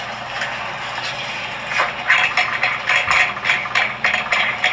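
Onions frying in a pan beside meatballs: a steady sizzle, with irregular crackling pops from about two seconds in.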